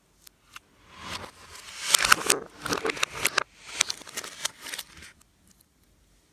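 Slime being kneaded and squished by hand, a dense sticky crackling in two stretches with a short break in the middle, the first stretch louder.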